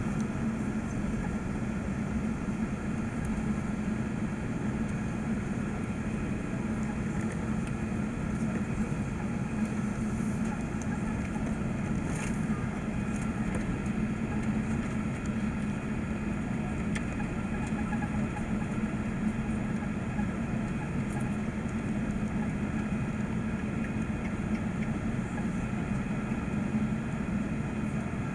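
Steady hum inside an Airbus A380 passenger cabin from the running engines and air systems, even throughout, with a faint click about twelve seconds in.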